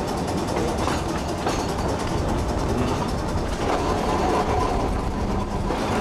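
Trolley car running along the track, heard from aboard: a steady rumble of steel wheels on rail, with a few clicks and a thin whine in the second half.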